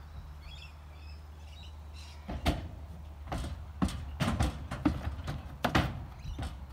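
A quarter horse's hooves knocking and clattering on a horse trailer's floor and rear ramp as it backs out, a run of irregular hollow thuds starting about two and a half seconds in.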